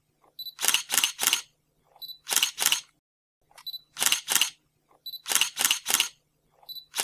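Camera shutter sound effect: a short high focus beep followed by two or three quick shutter clicks, repeating about every second and a half. A faint steady hum runs under it.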